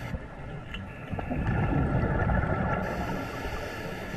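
Scuba breathing through a regulator underwater: a hissing inhalation at the start and again near the end, with a rumbling gush of exhaled bubbles in between.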